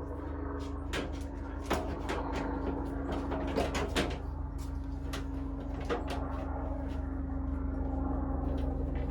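Scattered clicks and knocks of washing-machine parts being handled and fitted during reassembly, over a steady low hum.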